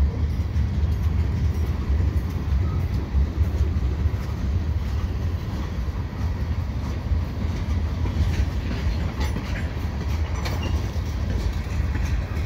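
Freight cars of a slow-moving freight train rolling past close by: a steady low rumble of steel wheels on rail. A few sharp clicks and knocks come through, most of them between about eight and ten seconds in.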